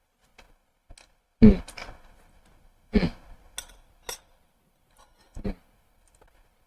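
A person tasting ice cream makes a few short sighs or hummed 'mm' sounds, with a couple of light clicks in between.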